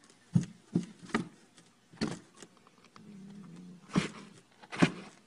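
Dull knocks on a cardboard box, about seven spread irregularly, as a cat inside rears up and swats at a toy dangling through the lid. A short low hum sounds briefly in the middle.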